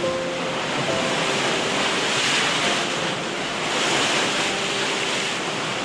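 Sea waves washing onto the shore with the incoming tide, the surf swelling twice, with soft background music underneath.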